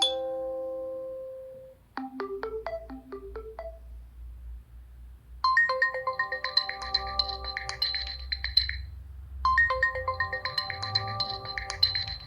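Stock Nokia 3 (TA-1032) ringtones playing one after another. A held note dies away over the first two seconds. A short run of single notes follows. About five seconds in, a fuller melody with high held notes begins, breaks off briefly and repeats.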